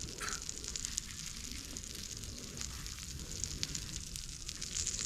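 Wood campfire crackling, with many scattered sharp pops over a steady hiss.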